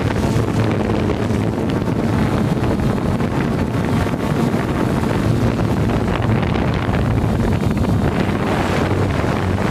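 Hubsan quadcopter's motors and propellers whirring steadily in flight, picked up by its onboard camera, with wind buffeting the microphone.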